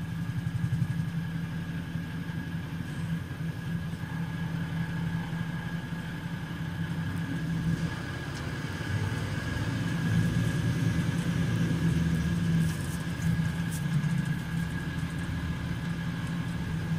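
Mercedes-Benz Citaro C2 bus's turbocharged six-cylinder OM 936 diesel engine idling steadily, with a thin high whine running alongside. It gets a little louder about ten seconds in, then settles.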